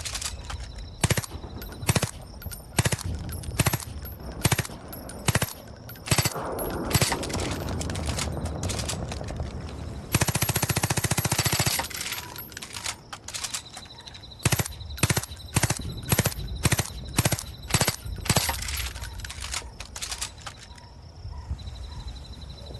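Suppressed Škorpion submachine gun firing: spaced single shots, then a fast automatic burst of nearly two seconds about ten seconds in, then more single shots.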